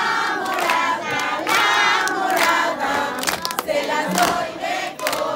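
A crowd of people singing together, holding long notes.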